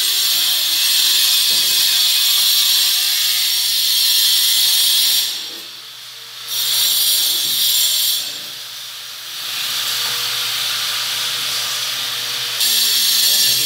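A steady high hiss that nearly cuts out twice in the middle, for about a second each time, then returns.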